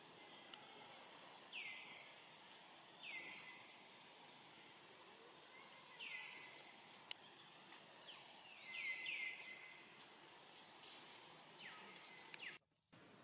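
Faint outdoor background with a bird giving short, high, downward-sweeping chirps every few seconds, three in quick succession about nine seconds in. A single sharp click comes about seven seconds in, and the sound cuts out briefly near the end.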